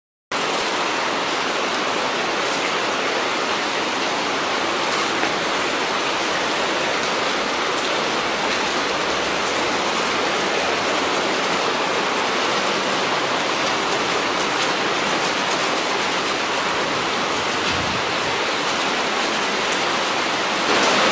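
Heavy typhoon rain pouring down onto wet pavement, a steady, even hiss.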